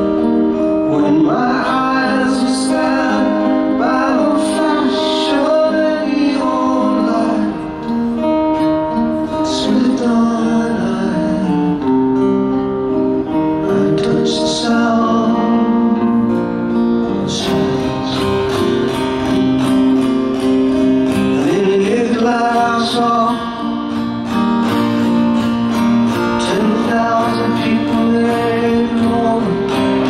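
A man singing a slow song live, accompanying himself on a steel-string acoustic guitar.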